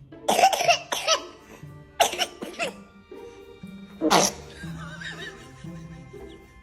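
A person sneezing in three explosive bouts, the last and loudest about four seconds in, mixed with laughter over background music.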